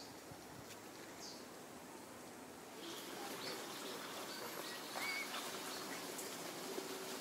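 Outdoor tree-canopy ambience with short, high, falling chirps repeating about every 0.7 s at first, then a busier mix of faint calls and clicks from about three seconds in.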